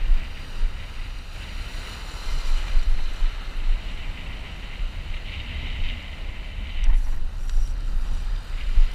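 Wind buffeting the microphone in uneven gusts over the hiss and wash of small breaking surf.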